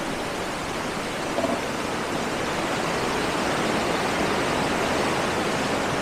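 Fast mountain river rushing over rapids and boulders: a steady, even rush of water.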